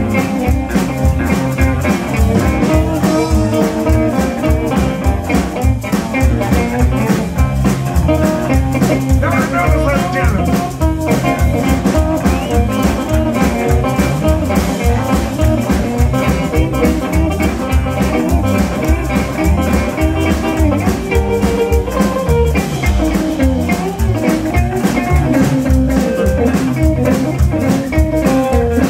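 Live band playing a blues/rock-and-roll number: electric guitars over upright bass and a drum kit, with a steady beat.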